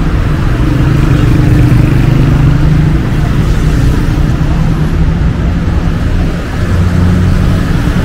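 City street traffic: motor vehicles running close by, with a steady low engine hum over the general road noise.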